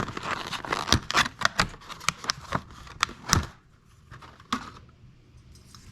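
Clicking, rattling and crinkling as a crow's foot wrench set and its plastic packaging are handled, for about three and a half seconds, then a single click near the end.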